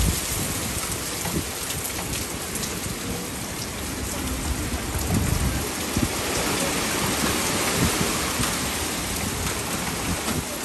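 Hurricane wind gusting through trees and driving rain, with irregular low gusts blasting the microphone.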